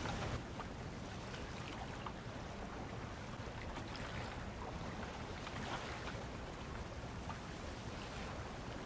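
Steady water-like rushing noise with faint scattered ticks.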